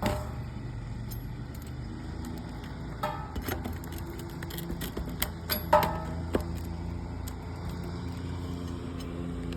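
Metal pry bar and hammer working roofing nails loose from asphalt shingles: scattered sharp clicks and a few short ringing metal strikes, the loudest a little before the middle, over a steady low rumble.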